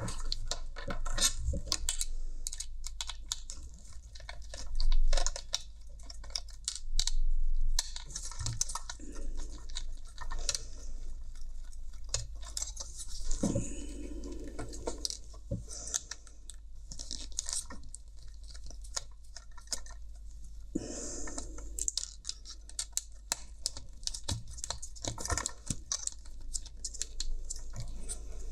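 Irregular clicks, taps and scraping of plastic headphone parts being handled and taken apart with a small screwdriver. Two louder bursts of handling noise come about five and seven seconds in.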